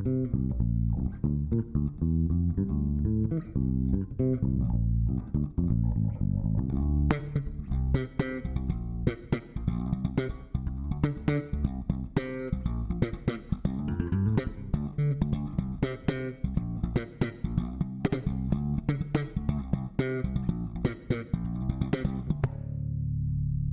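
Ibanez four-string electric bass with its stock passive circuit, played solo in a busy line of plucked notes. About seven seconds in the playing turns sharply percussive, with bright snapping attacks, and near the end a low note is held and fades.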